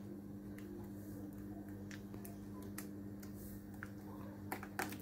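A gloved hand mixing thin rice-flour batter in a glass bowl: scattered small clicks and ticks, with a couple of sharper ones near the end, over a steady low hum.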